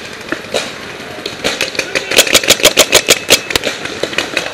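Paintball marker firing a rapid string of shots, about eight a second, starting about a second and a half in and lasting roughly two seconds before thinning to a few scattered shots.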